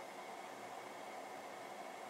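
Steady faint hiss of background room noise, even throughout with no distinct events.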